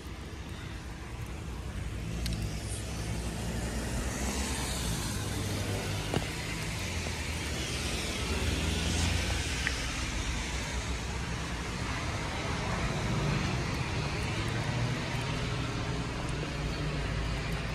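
Road traffic on wet pavement: cars passing with a tyre hiss that swells and fades several times over a steady low rumble. A single sharp click about six seconds in.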